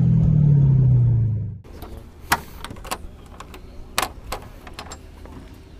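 Low pitched background music that cuts off abruptly about a second and a half in, followed by scattered light clicks and knocks from hands handling the car's hood and hood pins.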